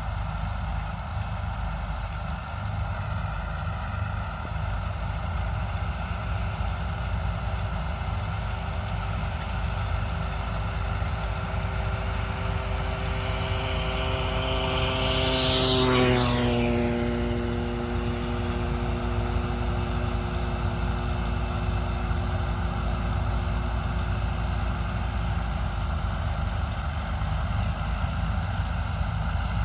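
Heavy farm machinery engines running steadily. About halfway through, a second large harvest machine passes close by: its engine whine builds to a peak, then drops in pitch as it goes past.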